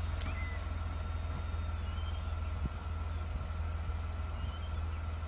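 Vehicle engine idling with a steady low rumble, heard from inside the stopped car.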